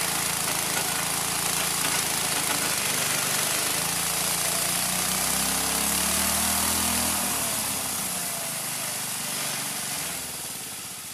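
Multifunction chopper-grinder driven by a small 6.5 HP engine, running at speed while grinding corn cobs. About seven seconds in, the engine is throttled down and the machine winds down, fading toward the end.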